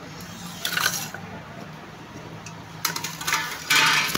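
Aluminium foil and a plastic food wrapper crinkling as takeaway food is unwrapped, in short bursts: once about a second in, then twice near the end, the last the loudest. A faint steady low hum runs underneath.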